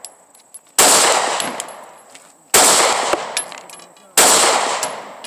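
Three single gunshots about a second and three quarters apart, each sharp crack fading out in a long echo over more than a second.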